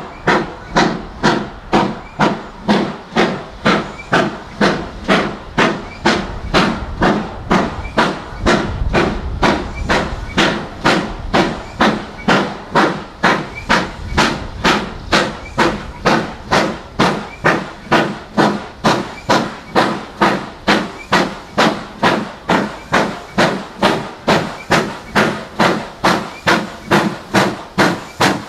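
GWR Castle-class 4-6-0 steam locomotive exhaust beats as the engine works hard up the line, a steady sharp chuff about twice a second. A deeper rumble swells for a few seconds in the middle.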